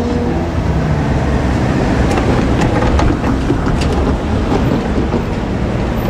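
Train passing close by at speed: a loud, steady rumble of wheels on rail, with a few sharp clicks from the wheels crossing rail joints a couple of seconds in.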